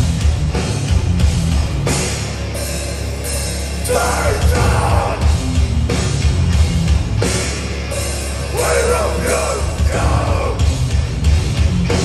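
Live heavy punk/metal band playing loud: distorted electric guitars, bass and drums with crashing cymbals, and shouted vocals coming in about four seconds in and again about nine seconds in.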